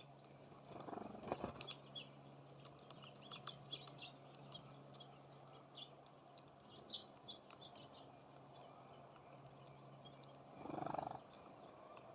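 Faint, short, high chip notes of small songbirds at a feeder, scattered throughout, with a few light clicks and taps. There are two brief rustling bursts, one about a second in and one near the end, over a faint steady hum.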